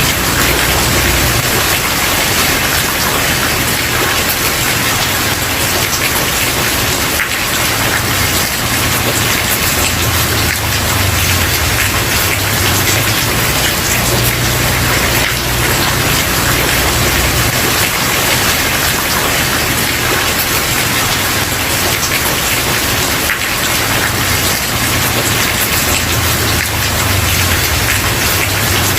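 Steady rain falling on a wooden porch, an even patter with no sudden drops. A low rumble swells and fades underneath.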